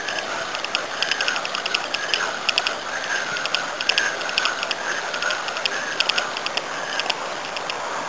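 Fishing reel being cranked to wind in a hooked fish, its gears ticking in quick runs of fine clicks over and over.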